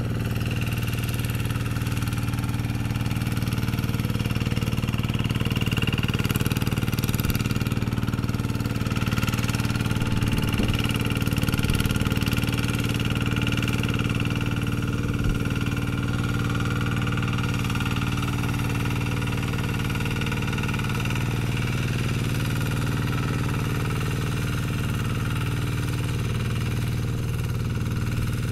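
Kubota RD110Di-2T single-cylinder diesel on a two-wheel hand tractor running steadily at constant speed.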